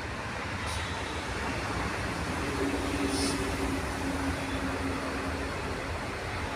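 Steady rumble of a diesel-electric locomotive approaching along the track in the distance, mixed with road traffic noise. A faint steady tone comes in about two and a half seconds in and fades after about three seconds.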